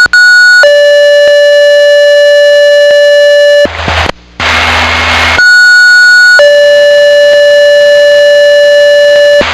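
Two-tone sequential paging tones over a fire and EMS dispatch radio: a short high tone followed by a long steady lower tone, sent twice with a burst of radio static between them. This is the tone-out that activates alerting pagers for a test page.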